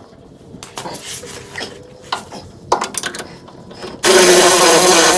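A few scattered clanks and knocks of shop work, then about four seconds in a power tool starts up loud and runs steadily.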